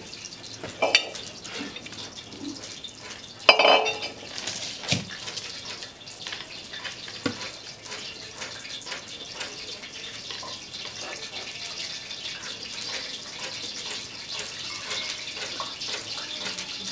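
A wooden spatula and a plastic scoop scrape and knock against an aluminium pot while thick fufu dough is worked and scooped out. There are a few sharp knocks, the loudest about three and a half seconds in, over a steady hiss.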